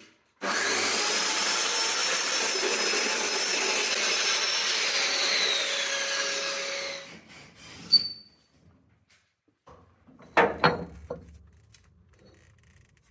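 A power tool runs steadily for about six seconds, its whine falling away near the end as it stops, followed by a sharp click and a few knocks a few seconds later.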